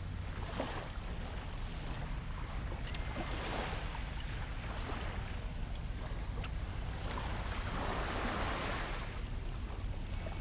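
Wind rumbling on the camera microphone over the wash of sea surf, with hissing swells rising and falling every few seconds.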